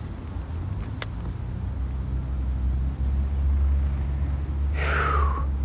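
Low, steady rumble of a motor vehicle engine, swelling louder about halfway through, with a single click about a second in and a brief falling sound near the end.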